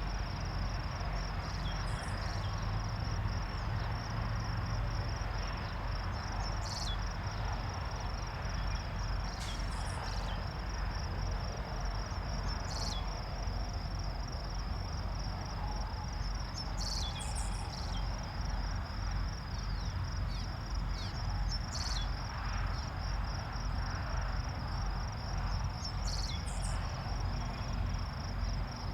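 Insects chirring in a steady high drone, over a low steady rumble, with short high chirps sounding about half a dozen times.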